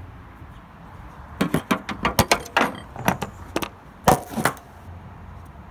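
Hand tools being handled while a Torx screwdriver is tried: a quick run of sharp clicks and clatters of metal over about three seconds, the loudest about four seconds in.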